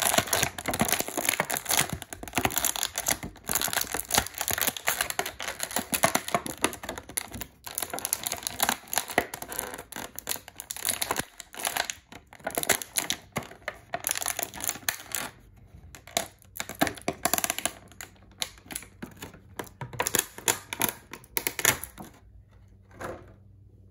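Action figure packaging being handled as the figure and its accessories are pulled out: dense, irregular crinkling, crackling and clicking of the plastic tray and packaging, thinning out about two seconds before the end with one last short burst.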